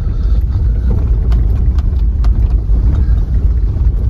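A car driving, heard from inside the cabin: a steady low rumble of engine and tyres, with scattered short knocks and rattles.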